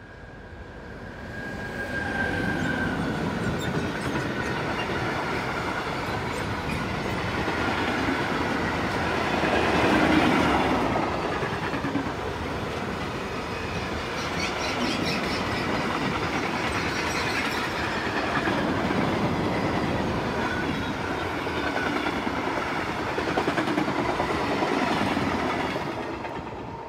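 A long DB Cargo mixed freight train of 37 wagons, many of them tank wagons, passing close behind an electric locomotive: the steady rumble and clatter of its wheels on the rails, with clickety-clack over the rail joints. It swells in the first two seconds as the locomotive arrives, with a thin high tone at first, and fades near the end as the last wagons go by.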